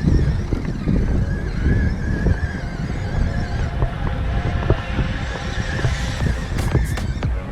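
Radio-controlled crawler's electric motor and gears whining, the pitch wavering up and down with the throttle, over a low rumble. A few sharp clicks near the end.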